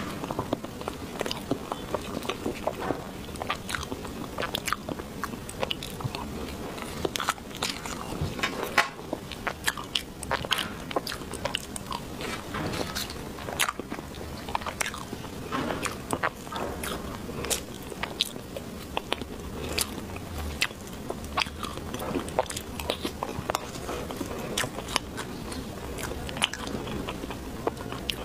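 Close-miked chewing and biting of a chocolate dessert: wet mouth sounds with frequent short, sharp crunches and clicks coming irregularly, several a second.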